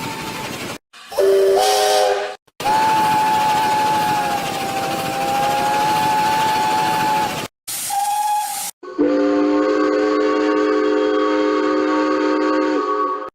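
A series of steam locomotive whistles cut one after another: a short chord blast, a long single-note whistle over steam hiss, a brief toot, then a long chord whistle of several notes sounding together.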